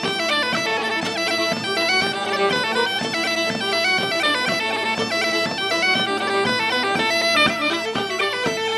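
Bagpipe music: a stepping melody played over steady drones, with a regular beat underneath.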